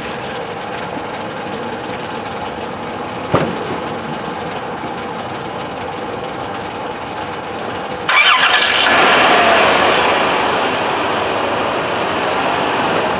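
Dodge Grand Caravan's 3.8-litre V6 cranked by the starter about eight seconds in, catching and running on. A single click comes a few seconds before, over a steady faint hum.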